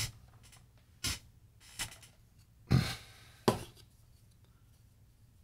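Four short knocks and clicks of tools being handled on a workbench as a soldering iron is picked up, the loudest a knock a little under three seconds in followed by a sharp click; then only faint room tone.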